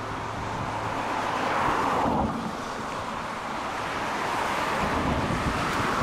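Strong wind gusting across the microphone, a steady rushing that swells about a second and a half in, drops off sharply just after two seconds, and builds again near the end.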